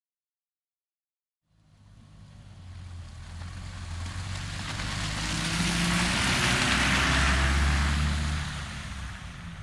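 A car driving past: silent at first, then engine and tyre noise rising as it approaches from about a second and a half in, loudest a little past the middle, with its engine pitch dropping slightly as it passes, then fading as it moves away.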